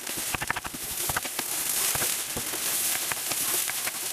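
Semolina crumbs frying in a pan, a steady sizzle with many small crackles and clicks as a wooden spatula stirs and breaks them up.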